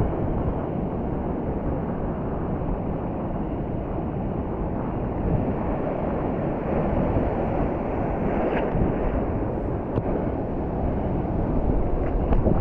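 Surf washing on a beach, with wind buffeting the microphone: a steady, even rush of noise.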